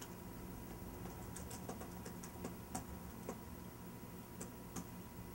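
Scattered, irregular soft clicks of a laptop's keys and trackpad being pressed, over a faint steady hum.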